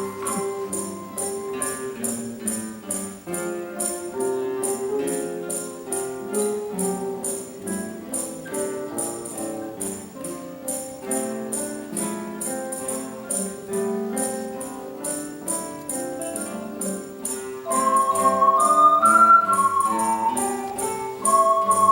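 Tone chime ensemble playing a tune, ringing notes held and overlapping, over a steady high shaking beat of about four strokes a second. About three-quarters of the way through, higher notes come in and the music gets louder.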